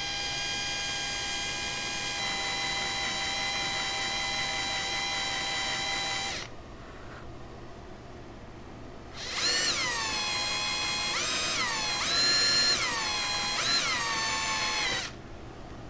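Cordless drill spinning a small bit into the soft aluminum Welch plug over a Keihin CVK carburetor's idle mixture screw. First comes a steady whine for about six seconds. After a pause of about three seconds there is a second run of trigger pulls, the motor's pitch dropping and rising several times as the bit bites into the plug, until it stops about a second before the end.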